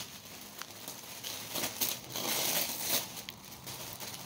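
Packing paper crinkling and rustling as a wrapped parcel is handled and unfolded, in uneven bursts loudest in the middle, with a few sharp ticks.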